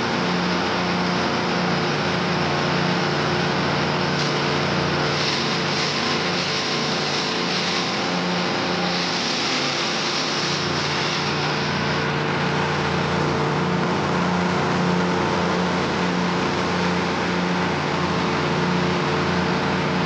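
Chipper-shredder running steadily with a constant hum while dry coconut fronds are fed in and chopped by its blades. The chopping rush grows harsher for several seconds around the middle, then settles back.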